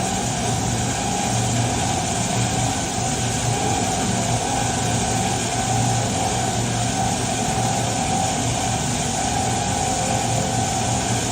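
Diamond wire saw running steadily, a constant motor hum under a wide hiss.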